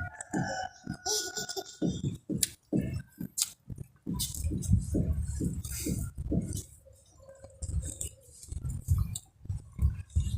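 A person chewing and smacking food close to the microphone, the wet chewing coming in irregular pulses a few times a second, with scattered sharp clicks and clinks; it is quieter for a moment a little past the middle.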